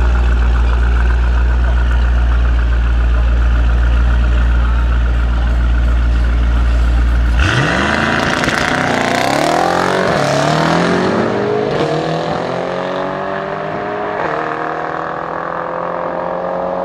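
Mercedes-AMG E63 S and a Mercedes-AMG GT roadster on a drag-strip start line, their engines holding a loud, steady deep drone. About halfway through they launch, the engines revving up in rising sweeps, with the pitch dropping and climbing again at each upshift as they pull away.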